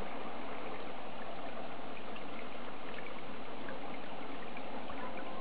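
Steady running water trickling into a garden pond, with faint scattered ticks over the even rush.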